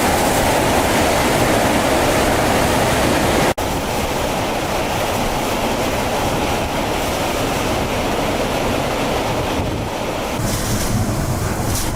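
Hurricane eyewall wind and storm-surge surf: a loud, steady rush of wind and crashing water, with wind buffeting the microphone. The sound cuts out for an instant about three and a half seconds in.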